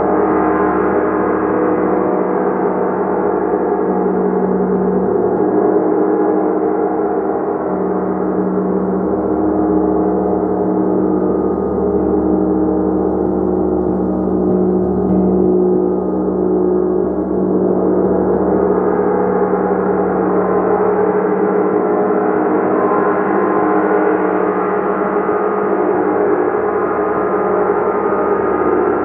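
A gong played continuously: a loud, sustained wash of many overlapping ringing tones with no gaps. It dims a little partway through and swells brighter again from a little past halfway.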